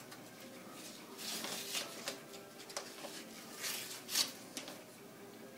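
Packaging being torn and pulled off by hand: a run of scratchy tearing and rustling noises, the loudest about four seconds in.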